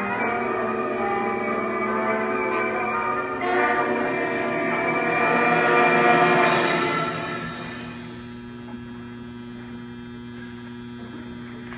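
Cadet brass band of saxophones, trumpets, trombones and bass drum playing, swelling on a long held chord to a peak about six seconds in, then stopping, the sound dying away. A steady hum remains after the band stops.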